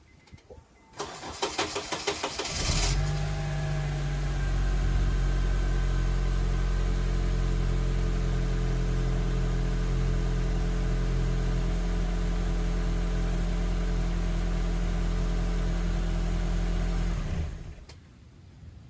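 Honda Accord's K24 2.4-litre four-cylinder engine being started: the starter cranks for about two seconds before the engine catches, then it idles steadily until it is switched off near the end. The car's complaint is hard starting with white smoke from the tailpipe.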